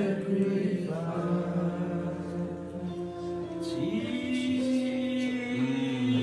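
Slow gospel worship singing, several voices holding long sustained notes that shift pitch slowly.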